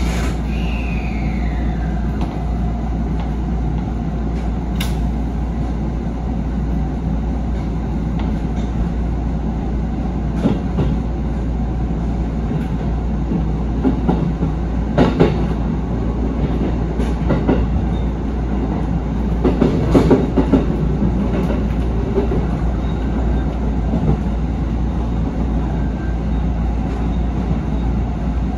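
JR 313 series electric multiple unit running along the line, heard from the cab as a steady low rumble of wheels on rail. Clusters of sharp clicks and knocks from the wheels over rail joints and track come about halfway through and again about two-thirds of the way in. A high tone falls in pitch during the first two seconds.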